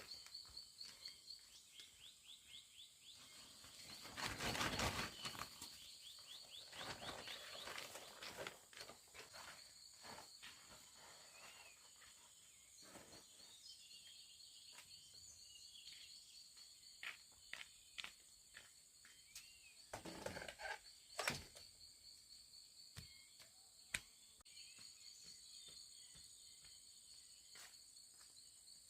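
Insects chirping in a steady, fast-pulsing high trill with a thin continuous whine above it. Over it come short clicks and rustles, and a louder rustle about four seconds in and again about twenty seconds in, with a few short bird chirps.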